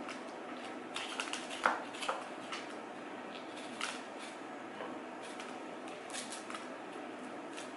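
Small kitchen knife cutting around the stem and scraping inside a fresh jalapeño to hollow out the seeds: scattered crisp crunches and clicks of the pepper's flesh, the loudest a sharp snap a little under two seconds in, over a steady background noise.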